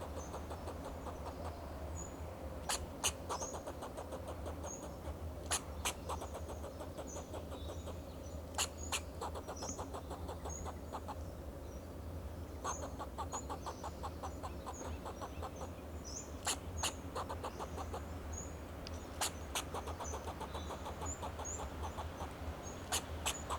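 Fox squirrel giving alarm calls: sharp barks, mostly in pairs, every few seconds, with rapid buzzy pulse trains between some of them.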